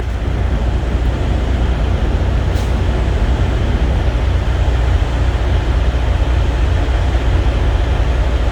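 Steady low rumble of an idling engine, with an even noisy hiss over it and one faint click about two and a half seconds in.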